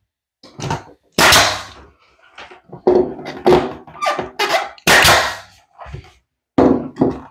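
Pneumatic 16-gauge finish nailer firing nails into baseboard trim several times, each a sudden sharp shot, with smaller knocks between them.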